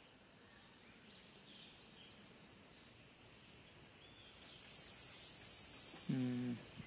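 Faint outdoor ambience with birds chirping. About six seconds in, a short low pitched sound of about half a second is the loudest thing heard.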